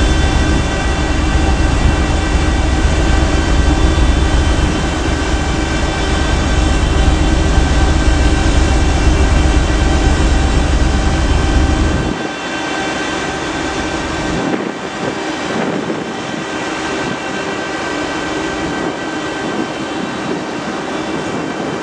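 Steady drone of a passenger ferry's engines and machinery, with many steady tones, under a heavy low rumble of wind on the microphone that drops away suddenly about twelve seconds in.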